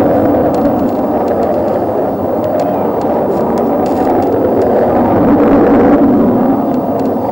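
Navy military jet flying overhead: loud, continuous jet noise that swells about five to six seconds in and eases off near the end.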